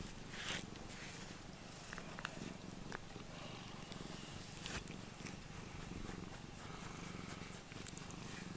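Domestic cat purring steadily while being brushed with a rubber grooming brush, with a few faint clicks.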